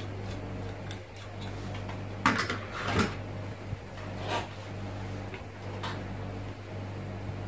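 A few short clicks and rustles of a small TV circuit board and soldering tools being handled, the loudest about two seconds in and the rest spread over the next few seconds, over a steady low hum.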